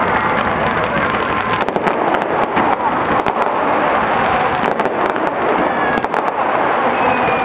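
Fireworks crackling: a dense, continuous stream of sharp pops and crackles from many bursting crackling stars.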